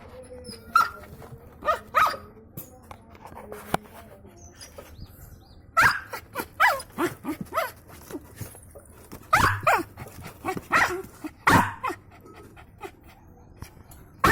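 A dog barking in short, sharp barks: a few single barks in the first two seconds, then runs of barks from about six seconds in and again around nine to twelve seconds.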